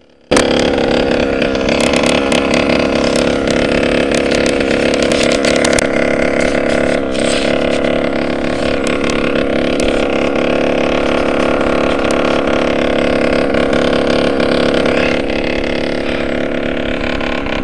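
27cc two-stroke gas engine of an FG large-scale RC truck, running loudly at a steady, unchanging speed.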